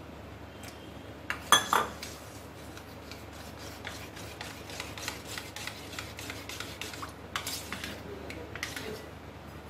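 A metal spoon stirring thick puree in a steel pot, scraping and clinking against the sides and bottom, with a couple of louder metal clanks about a second and a half in.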